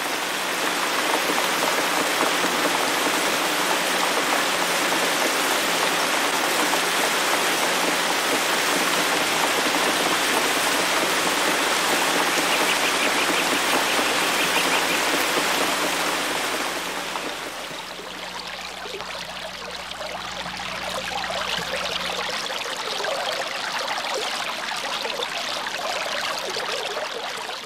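Water fountain splashing and pouring in a steady, dense rush; about 17 seconds in it thins to a quieter, uneven trickle and patter of falling water.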